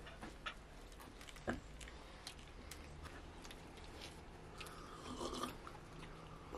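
Faint eating sounds: quiet chewing and small clicks and rustles of naan bread being torn and handled, with one sharper tap about one and a half seconds in.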